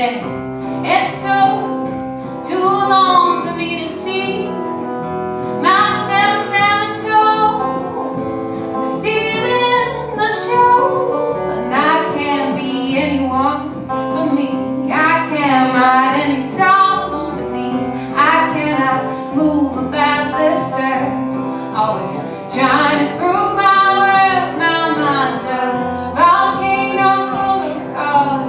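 Live folk song: a woman singing over plucked-string band accompaniment.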